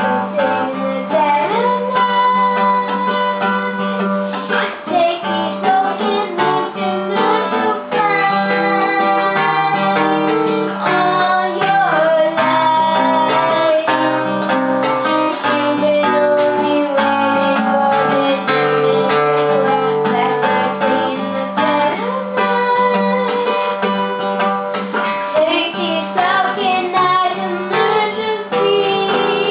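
A female voice singing over a fingerpicked acoustic guitar.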